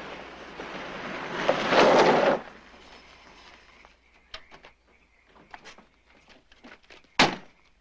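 A car on a dirt yard skidding to a stop, the sound of tyres and engine building to a loud peak about two seconds in and then cutting off. Quiet follows, with scattered small knocks and one sharp knock near the end.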